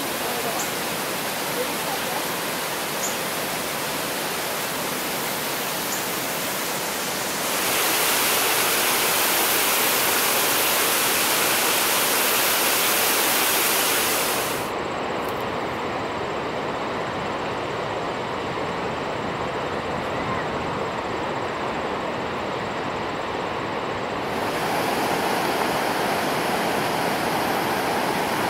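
Rushing water of the Niagara River's rapids and small cascades: a steady hiss of moving water. Its loudness and tone shift abruptly a few times. A few faint high chirps come in the first seconds.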